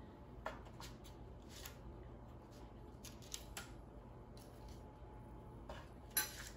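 Metal kitchen tongs clicking faintly as cooked bacon strips are picked off a parchment-lined baking sheet: a few scattered quiet ticks and light rustles over a low room hum, the sharpest click about six seconds in.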